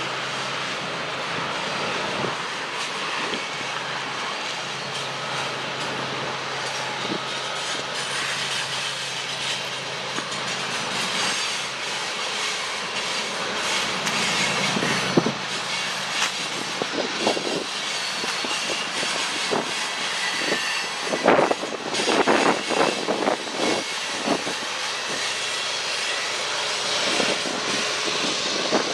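Freight train passing, with steady rail noise, and wind gusting on the microphone in irregular bursts about two-thirds of the way through.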